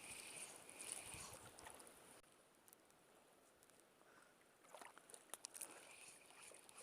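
Faint high-pitched insect buzzing that dies away about two seconds in and returns near the end, with a few small clicks about five seconds in.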